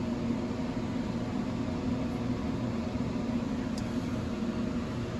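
Steady low machine hum with a hiss, unchanging throughout: background noise of the workspace.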